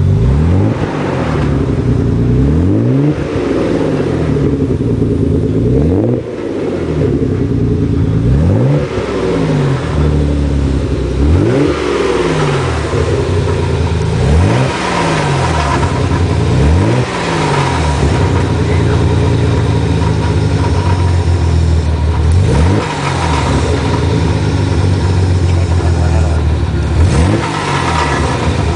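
Nissan 300ZX Twin Turbo's VG30DETT V6 blipped about nine times, the revs rising sharply and falling back to idle each time, with a steady idle stretch in between. A clicking is heard most as the revs drop after each rev-up; the owner wonders whether it comes from the turbo.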